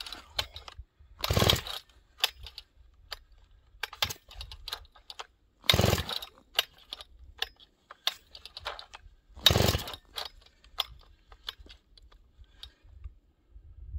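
Cold-soaked Husqvarna 394 XP chainsaw being pull-started three times, a few seconds apart. Each pull is a short rasp of the recoil rope cranking the stiff, high-compression engine over, and the saw does not catch. Small clicks and knocks of handling come between the pulls.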